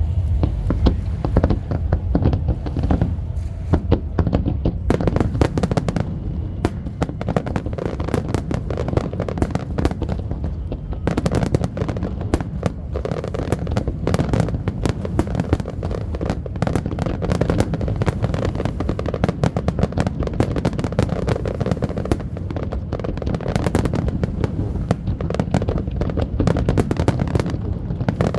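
Fireworks display: dense, rapid crackling of many small bursts over continuous low booms from the shells going off.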